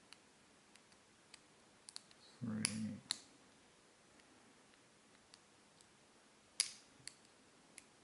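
Small, sharp, irregular clicks of a lock pick and tension wrench working the pin stack inside a small Abus titanium padlock, with one louder click about six and a half seconds in. The picker takes it that the pick is slipping off the pins.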